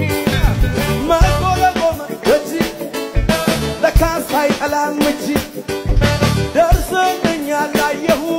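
Upbeat Ethiopian Protestant gospel song (mezmur) playing, with a steady beat and a melody line over it.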